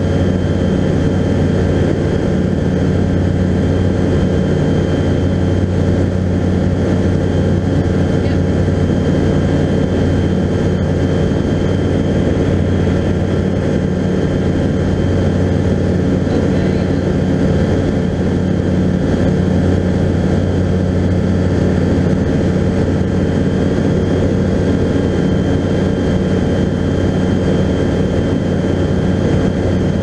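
Skyranger Classic microlight's engine and propeller droning steadily in flight, heard from inside the cockpit.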